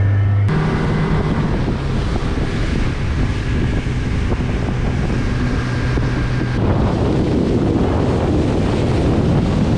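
Boat under way: a motor hums steadily under heavy wind buffeting on the microphone and the rush of water past the hull. The hum drops out about two-thirds of the way through, leaving the wind and water.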